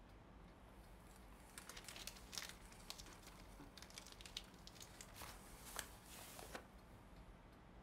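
Faint, irregular crinkling and crackling that runs for about five seconds over a low room hum and stops near the end, like material being rustled or crumpled.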